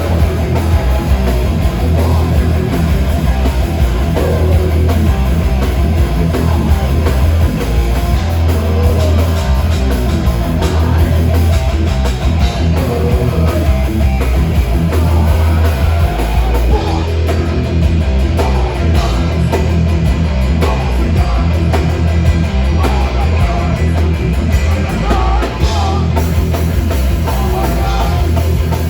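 Metal band playing live and loud: distorted electric guitars, bass and drum kit, with vocals.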